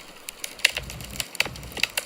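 Wood fire crackling in a fireplace: irregular sharp pops and snaps, several a second, with a soft low rumble in the middle.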